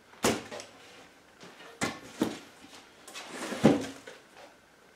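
A sheet of plywood handled and laid down onto a cardboard box: four sharp knocks, with a brief rustle of handling just before the last.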